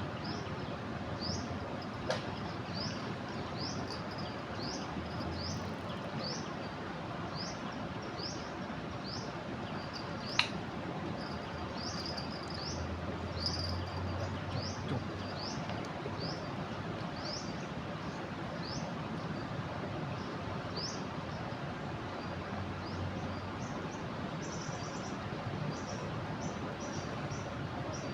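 Steady rush of a river in flood, with a bird repeating a short rising chirp about once a second that quickens near the end. A single sharp click about ten seconds in.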